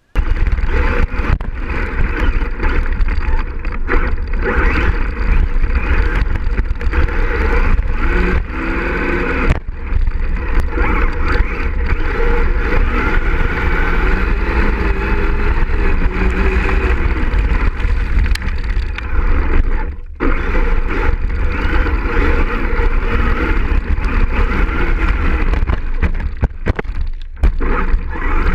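Traxxas X-Maxx 6x6 electric RC monster truck heard from a camera mounted on the truck, driving fast over gravel and grass. There is a loud, rough rumble of tyres and drivetrain with wind buffeting the microphone, and brief dips about twenty and twenty-seven seconds in.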